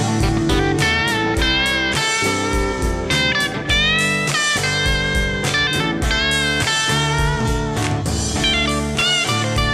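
Country rock song in an instrumental break: an electric guitar lead with bending notes over a steady drum beat.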